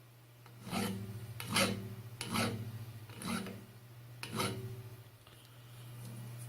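Holbrook C8 lathe parting off a steel T-bolt: the parting tool cuts in a run of rasping scrapes, about one a second, over the lathe's steady motor hum.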